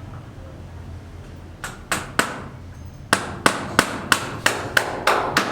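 Hammering: a few sharp, spaced strikes, then from about three seconds in a steady run of roughly three blows a second.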